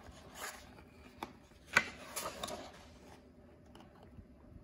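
A page of a large hardcover picture book being turned: paper rustling and sliding, with a sharp tap of the page just under two seconds in.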